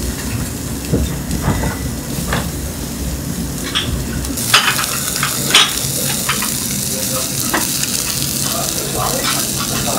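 Chicken yakitori skewers sizzling over a binchotan charcoal grill, with scattered light clinks and taps. About halfway through, the sizzle turns louder and brighter.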